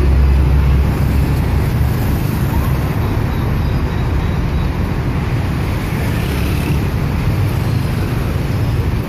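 Steady road traffic noise from passing cars, vans and motorbikes, with a deep rumble.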